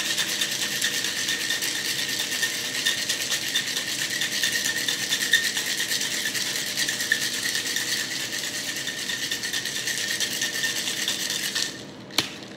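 Ice rattling inside a Boston shaker, a mixing glass sealed into a metal tin, as a cocktail is shaken to chill and froth it. It is a fast, even rattle that stops shortly before the end, followed by a single sharp knock.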